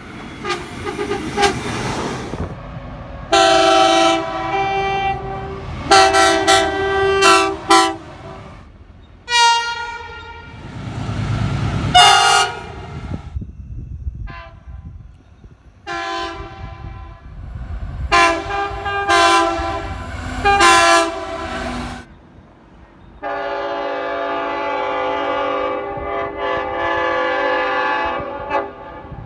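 Train horns sounding a series of chord blasts of varying length, several different horns one after another, with the rumble of passing trains in the gaps. A long, steady blast of about six seconds comes near the end.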